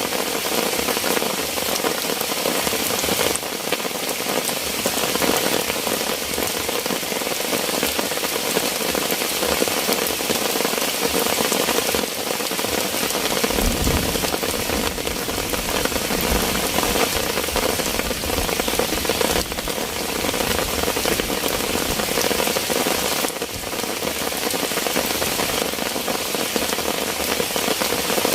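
Heavy rain pouring steadily, a dense even hiss of drops on surfaces. About halfway through, a low rumble joins underneath and continues.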